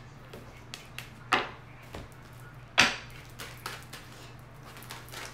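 Tarot cards being shuffled and handled by hand: light card clicks throughout, with two louder swishes of cards about a second and a half apart.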